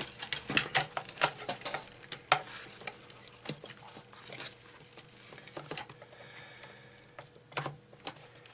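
Fingers handling the loose amplifier board and wiring inside a Hacker RP25A transistor radio's chassis: irregular clicks and light taps of plastic and metal. The taps come thick and fast in the first couple of seconds, then only now and then.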